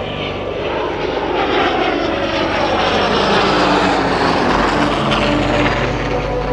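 Aircraft flyby: the F/A-18E/F Super Hornet and F4U Corsair passing in a legacy-flight formation, the engine noise swelling to a peak about halfway through and then easing as its pitch falls. Background music plays faintly underneath.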